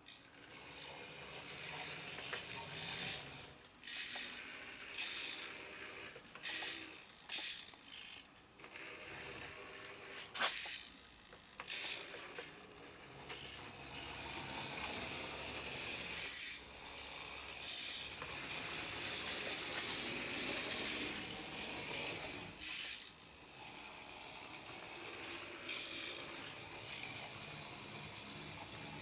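Tiny electric drive motors and gearing of 1/87-scale radio-controlled trucks whirring in short, irregular high-pitched bursts as they are driven in stops and starts, over a steady faint hiss.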